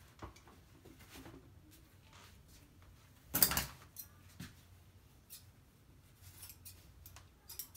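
Scissors snipping the ends of a satin ribbon, a few small clicks in the second half. A brief loud handling noise about three and a half seconds in is the loudest sound.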